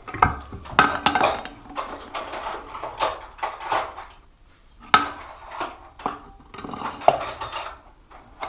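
Small metal parts and tools clinking and clattering as they are handled and set down while a motorbike is taken apart: a string of sharp knocks, with the loudest about a second in and near the end.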